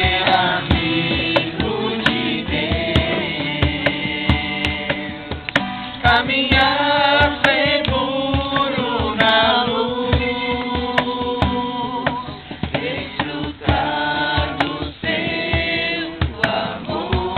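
Music: voices singing a song over a steady drum beat.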